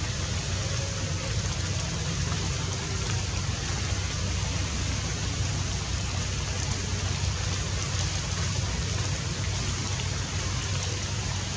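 Steady outdoor background noise: an even hiss with a low hum underneath, no distinct calls or knocks.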